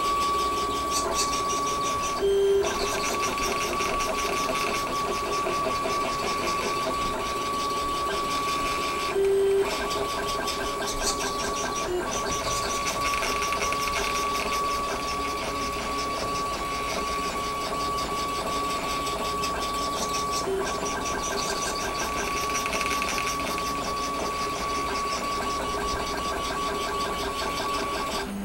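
3D printer's stepper motors whining steadily as the print head moves over the bed, a steady high note over a lower one. About two seconds in and again about nine seconds in it briefly switches to a louder, lower note as the head makes a different move.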